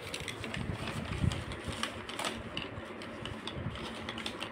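Irregular light clicks, taps and soft knocks of paper number cards on wooden craft sticks being handled and leafed through.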